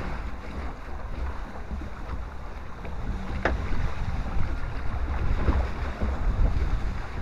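Water-ride boat moving along its water channel: water rushing and splashing around the hull, with a low rumble and wind buffeting the boat-mounted microphone.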